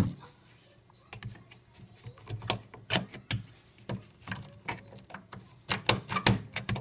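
A metal pry tool clicking and scraping against a rusted faucet nut as its tip is worked into the cut to pry the nut off. Irregular sharp ticks start about a second in and come thicker and louder near the end.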